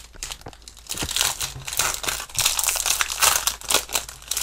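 Foil wrapper of a Yu-Gi-Oh! booster pack crinkling as it is pulled open by hand to get at the cards, a dense run of irregular crackles.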